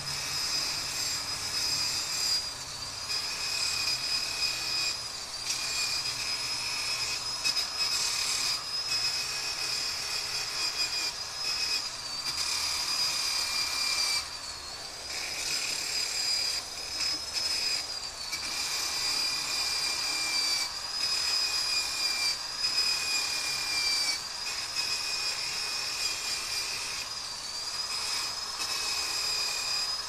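Cordless drill running at high speed with a grinding bit against steel, throwing sparks. It makes a steady high whine that sags in pitch as it is pressed in, with a rasping grind and short pauses every few seconds.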